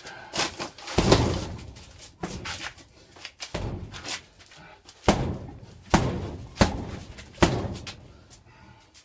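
Boxing gloves punching a hanging heavy bag: a string of sharp, heavy thuds at uneven spacing, the hardest blows coming about once a second in the second half.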